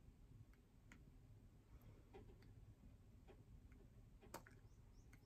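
Near silence with a few faint, short clicks, the clearest about four and a half seconds in: a fingertip tapping the plastic base of a small LED desk lamp.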